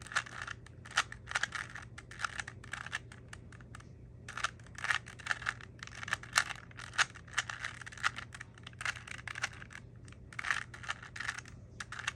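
Rubik's cube layers being turned quickly over and over: a rapid, irregular clatter of plastic clicks, with two short pauses. The algorithm is being repeated until a cross forms on the top face.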